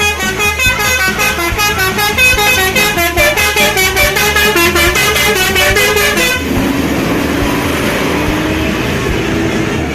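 Bus's Basuri 'telolet' musical horn playing a fast tune of stepping tones, which stops about six seconds in. A noisier stretch with a steady low drone follows.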